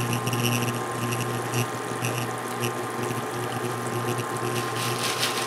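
Sugar syrup boiling hard in a saucepan on an induction burner as it nears 300°F, the hard-crack stage: a steady bubbling fizz with small crackles. Under it, a steady hum and a thin high whine from the induction burner.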